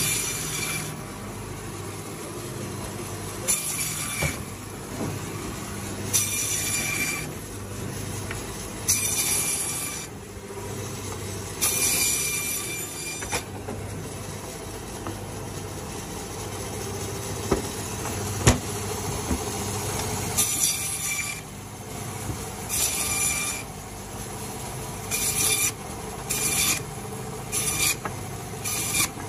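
Meat bandsaw running with a steady motor hum, its blade rasping through frozen beef in about a dozen separate cuts of a second or so each. A few sharp clicks stand out among the cuts.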